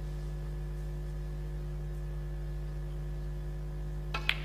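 Steady electrical mains hum on the broadcast sound, with a sharp click of snooker balls striking near the end.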